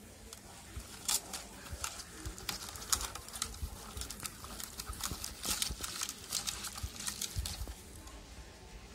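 A bare hand squishing and mixing a wet spice paste into fish in a steel plate: irregular wet squelches and smacks, with short clicks of fingers against the metal.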